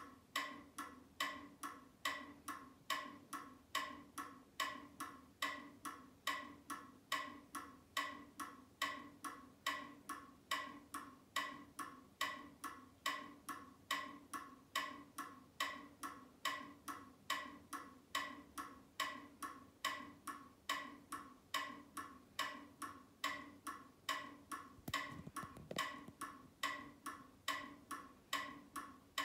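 Battery-powered waving lucky cat (maneki-neko), its arm mechanism ticking evenly about two and a half times a second as the paw swings, over a faint steady hum.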